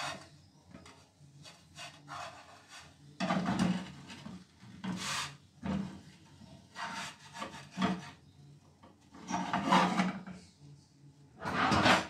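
Plastic spatula scraping and rubbing against a frying pan in a handful of short, irregular strokes, working a cooked tapioca loose from the pan.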